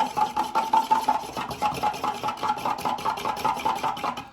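A metal fork whisking hot cocoa in a mug, clinking rapidly and evenly against the ceramic, about eight strikes a second, with the mug ringing. It stops suddenly near the end.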